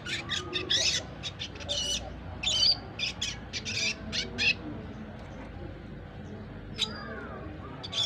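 Young red siskin, about four months old, practising its twittering song (ngriwik): a quick run of short, high notes, then a pause and one more call near the end.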